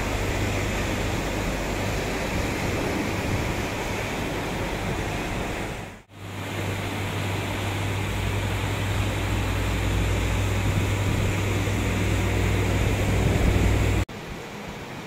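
Steady rushing noise of heavy rain and fast floodwater, with a low rumble underneath. It breaks off briefly about six seconds in and turns quieter near the end.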